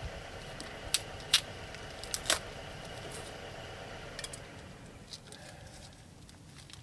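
Brake parts and tools being handled: a few sharp clicks and knocks about a second in and again at about two seconds, then fainter ticks. A faint steady background hum drops off about four seconds in.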